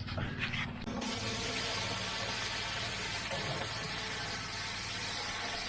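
Pressure washer's flat surface cleaner spraying high-pressure water onto tarmac: a steady hiss that cuts in abruptly about a second in, over a low steady hum.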